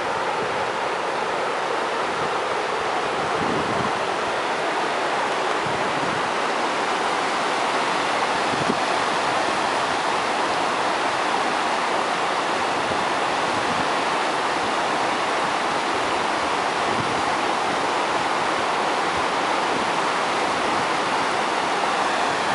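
Steady rush of the flooded Gallikos river: muddy floodwater streaming fast and tumbling over a low step.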